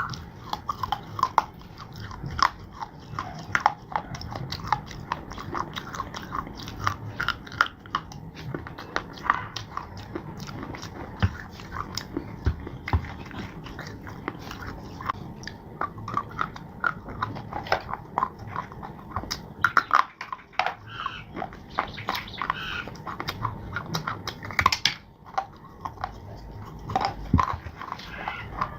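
Close-miked biting and chewing of crunchy dry clay and slate: a dense, irregular run of sharp crunches and crackles.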